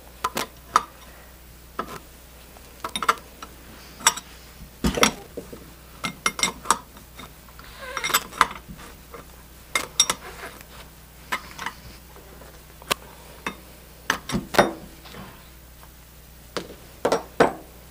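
Metallic clinks and clicks of a wrench working the brass valve retaining nuts on a YELLOW JACKET BRUTE II refrigeration charging manifold as they are loosened, with knocks as the manifold is shifted on the work surface. The clicks come irregularly, a few strong ones at a time.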